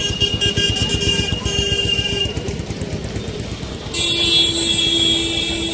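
Two long, steady vehicle horn blasts over the rumble of street traffic. The first lasts about two and a half seconds; the second, a little lower in pitch, starts about four seconds in and lasts about two seconds.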